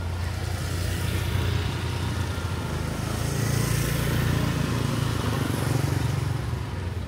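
Motorbike engine passing close on a wet street, its hum swelling about three seconds in and easing off near the end, over a steady hiss from the wet street.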